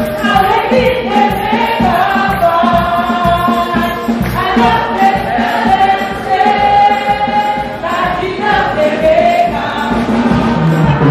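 Church congregation singing a gospel hymn together, held notes moving up and down the tune, over hand clapping that keeps a steady beat.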